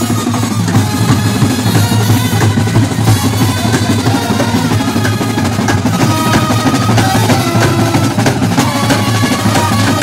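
Street brass band playing loudly with drums: horns holding notes over a steady, dense drum beat.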